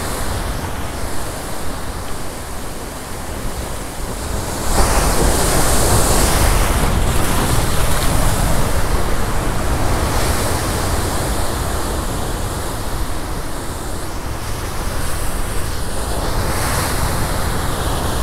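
Surf breaking and washing over rocks, a steady rush with a louder wave surging in about five seconds in and another near the end. Wind buffets the microphone with a low rumble.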